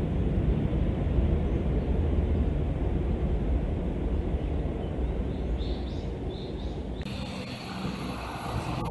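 Electric train running with a low, steady rumble, with a few faint bird chirps over it. About seven seconds in, the sound changes abruptly to a brighter, hissier train sound.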